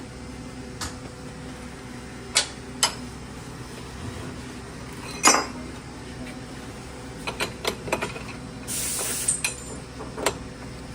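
Scattered metal clinks and knocks of a lathe turning tool and tooling being handled and set up, the loudest about halfway, a quick run of taps near the end, and a short hiss a little before the end, over a steady low shop hum.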